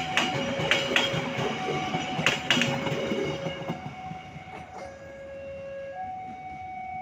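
Train wheels clacking over rail joints as the train rolls past and fades away after about four seconds. Under it, a steady two-tone warning alarm keeps alternating between a lower and a higher note about once a second.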